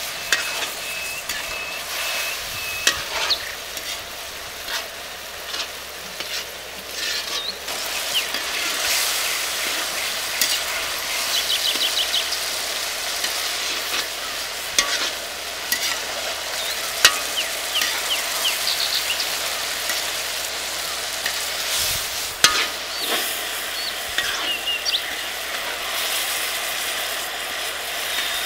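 Mushroom curry sizzling in a large iron kadai over a wood fire, stirred with a perforated spoon that scrapes and clicks against the pan many times.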